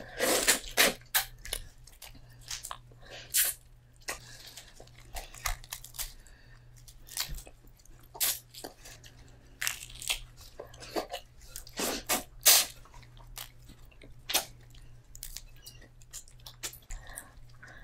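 A person eating seafood-boil food close to the microphone: irregular crunches, bites and chewing, with the loudest crunches every second or two.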